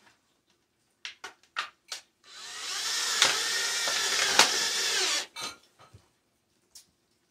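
A few sharp clicks, then a cordless drill/driver runs for about three seconds, spinning up at the start and stopping abruptly, as it drives a screw into the sheet-metal pipe collar.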